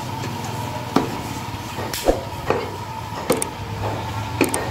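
Butcher's cleaver chopping goat meat on a wooden log block: sharp, irregular chops about a second apart, some in quick pairs, over a steady low hum.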